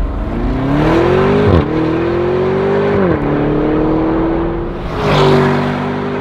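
Lamborghini Urus twin-turbo V8 with an Akrapovič exhaust, accelerating hard through the gears. The engine note climbs and drops sharply at each upshift, about every one and a half seconds.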